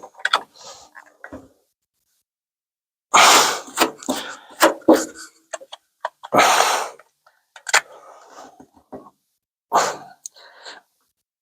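Suction-cup dent puller breaking its seal on a curved steel fender: several short, loud bursts of rushing air as the cup pulls loose. It will not hold because the panel is too round.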